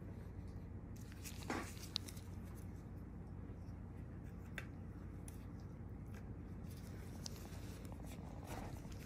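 Quiet small-room tone with a steady low hum. A few faint ticks and short rustles come through it, the clearest a brief scrape about a second and a half in and a sharp click just after.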